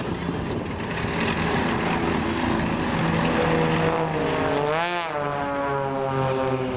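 Propeller engines of a pair of XtremeAir Sbach aerobatic monoplanes in a display, with a steady drone. About five seconds in the pitch swings sharply up and back down as an aircraft passes close.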